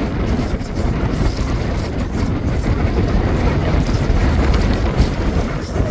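Strong wind buffeting the microphone: a loud, steady low rumble that swells and dips with the gusts.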